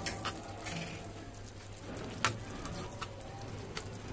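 Metal spoon stirring a thick chili pickle in a frying pan: light sizzling of the oily sauce with scattered clicks and scrapes of the spoon on the pan, one louder knock a little past halfway, over a steady low hum.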